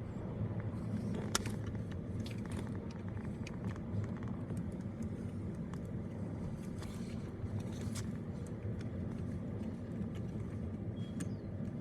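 Car engine idling with a steady low hum, under scattered light clicks and rustles of small parts being handled.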